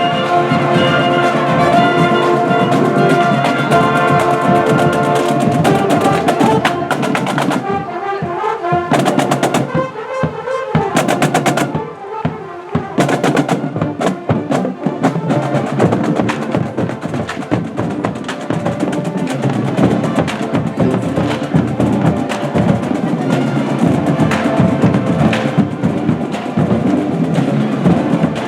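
High school marching band playing: brass with drums, dropping to the drums alone for several seconds in the middle before the full band comes back in.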